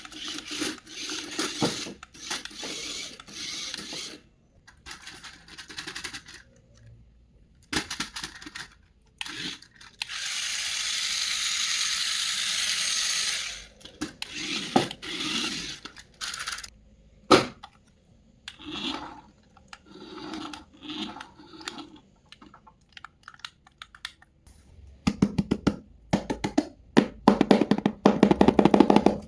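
Handling of toys and their packaging: rustling and scraping with scattered clicks and knocks, a steady hiss lasting a few seconds in the middle, and a rapid rattling buzz near the end.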